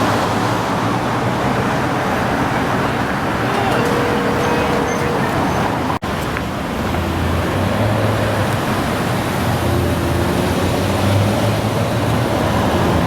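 Steady traffic noise from cars and their engines moving through a busy drive-thru lane close by, with a low engine hum. The sound cuts out for an instant about halfway through.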